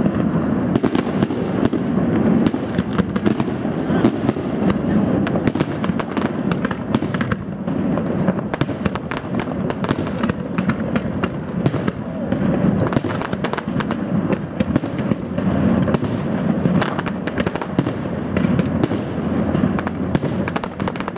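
Aerial fireworks display: shells bursting in a rapid, continuous barrage of sharp bangs, many overlapping, with no let-up.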